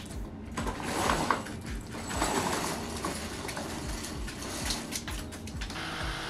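Soft background music with a steady low beat, about two beats a second.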